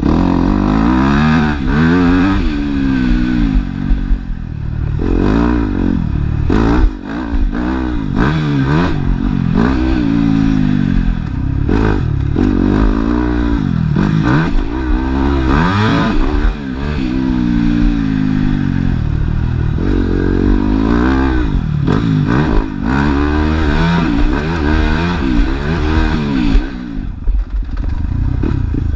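Yamaha motocross bike's engine, recorded on board while riding a dirt track. It revs up through the gears and falls back again every second or two as the throttle is opened and closed, with scattered clattering knocks over the rough ground.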